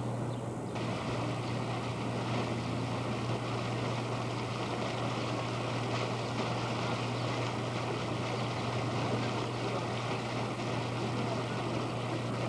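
A steady outdoor wash of noise from a fountain's splashing water and street traffic, over a low steady hum. The noise grows fuller less than a second in.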